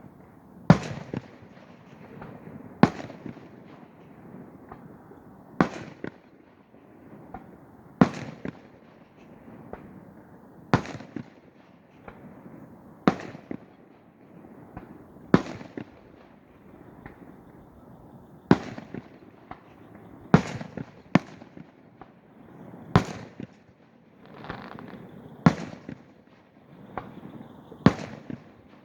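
Aerial fireworks shells bursting: about a dozen sharp booms, one every two to three seconds, with a low rumble and crackle between them. A thin steady whistle comes in near the end.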